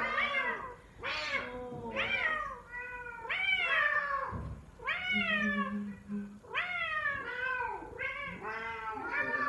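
F4 Savannah cat calling in a quick run of short meow-like calls, about one a second, each swooping up and then falling in pitch, a call its owner likens to a lion's.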